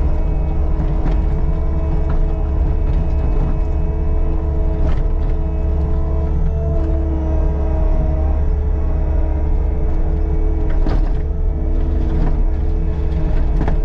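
Caterpillar compact track loader's diesel engine running steadily at working speed, with a hydraulic whine whose pitch shifts now and then and a few light knocks.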